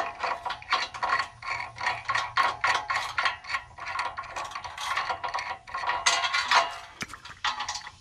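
Ratchet wrench clicking as nuts are run down on the sawmill bed extension's rail bolts: rapid, uneven metal clicks, several a second, with a brief lull near the end.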